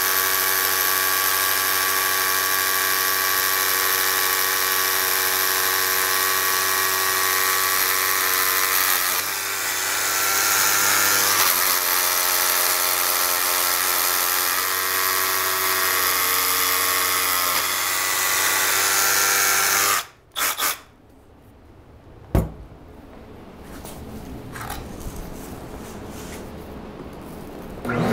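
Milwaukee M12 rotary hammer drilling into a concrete wall with a masonry bit, running steadily for about twenty seconds, then two short bursts before it stops. A single sharp knock follows a couple of seconds later, and a shop vacuum starts up at the very end.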